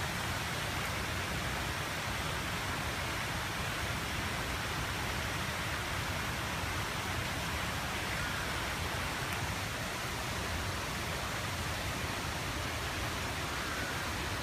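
Steady, even rushing hiss of outdoor ambience, with no distinct events.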